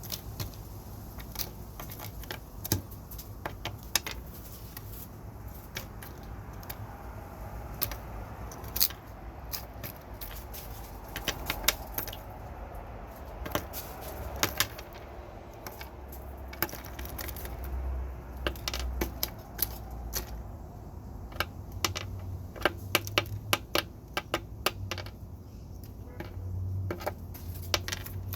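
Irregular sharp taps and clicks in quick clusters, birds pecking at peanuts on a hard surface, over a faint low hum.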